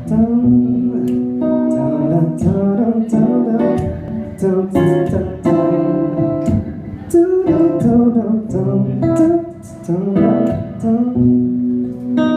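Acoustic guitar playing plucked chords and melody notes as the intro of a song.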